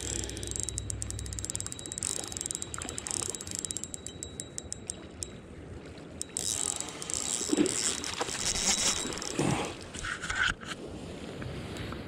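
Fishing reel being cranked, a fast run of even clicks from its gears for the first few seconds, followed by louder irregular knocks and handling noises.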